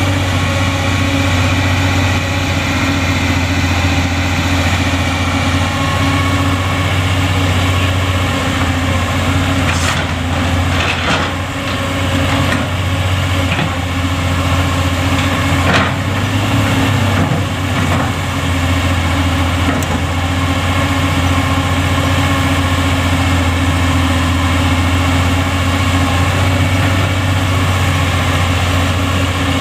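Excavator's diesel engine running steadily with a deep, even hum, with a few sharp knocks in the middle.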